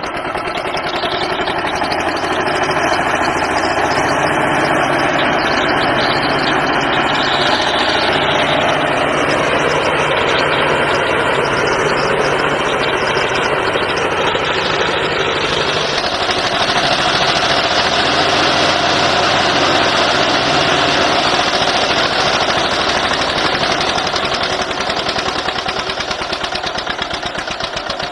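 Old tractor engine running loud and steady, with the engine of a backhoe loader working alongside; the sound changes a little about halfway through, gaining more hiss and losing its deepest hum.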